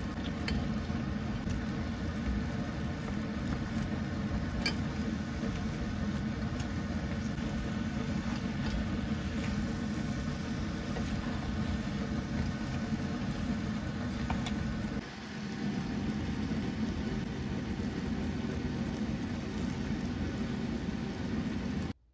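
Chicken pieces simmering in a thick, reducing sauce in a pot, with a steady machine-like hum over the bubbling and a few light clicks of chopsticks against the pot. The sound cuts off suddenly near the end.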